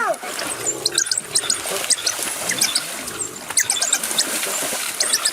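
Many short, high-pitched animal squeaks or chirps, several a second, over a noisy background.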